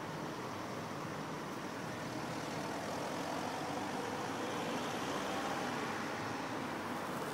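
Steady rumble of road traffic, swelling a little about halfway through as a vehicle draws closer.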